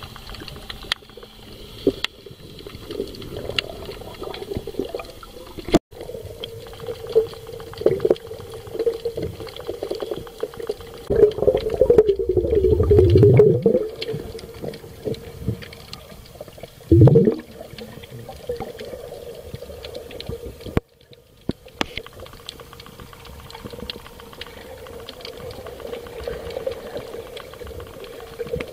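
Underwater sound picked up by a camera beneath snorkelers: a steady hum with crackling and scattered clicks. It is broken by a loud, wavering swoop that falls in pitch about twelve seconds in, and a shorter falling swoop about five seconds later.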